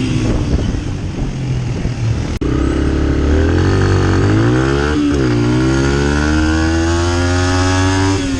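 Dirt bike engine being ridden hard over a steady rush of wind noise. The engine's pitch climbs, dips sharply about five seconds in, then climbs steadily through the last three seconds. The sound drops out for an instant about two seconds in.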